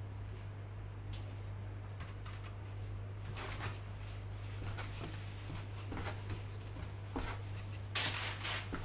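Light rustles and soft taps of hands pressing strips of pa thong ko dough into sesame seeds, over a steady low hum, with a louder rustling burst near the end.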